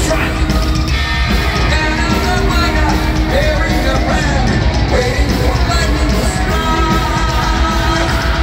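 Heavy metal band playing live through an arena PA, heard from the crowd: distorted electric guitars, bass and drums, with a male lead vocal singing over them.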